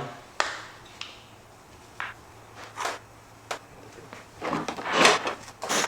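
Objects being handled and set down on a workbench: a few separate light clicks and knocks, then louder scraping or rummaging noises near the end, as something is fetched and placed under the engine head to hold the valves up.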